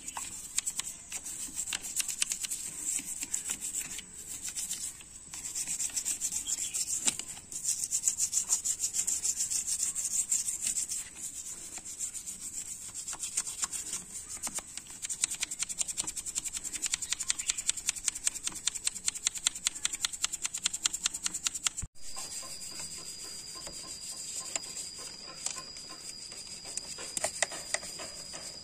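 Toothbrush bristles scrubbing oily, degreaser-softened crust off a motorcycle engine's carburettor and crankcase in rapid back-and-forth strokes. About three quarters of the way through, the scrubbing turns quieter and a steady high-pitched tone comes in beneath it.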